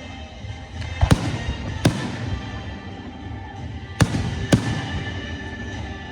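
Fireworks bursting: four sharp bangs, one about a second in, another near two seconds, and a close pair about four seconds in, over music with sustained notes.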